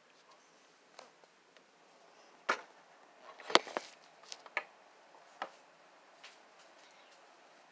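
Scattered light clicks and knocks, irregularly spaced, from handling a paint-covered vinyl record while tilting it, the loudest a sharp knock about three and a half seconds in.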